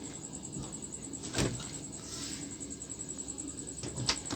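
Samsung refrigerator running with a steady low hum, broken by two short knocks, one about a second and a half in and one near the end, like a cupboard or door being handled.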